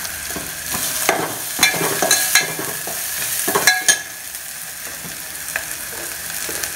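Onion and spice paste sizzling in hot oil in a steel pot as the masala fries, with a metal spoon scraping and clinking against the pot as it is stirred during the first few seconds.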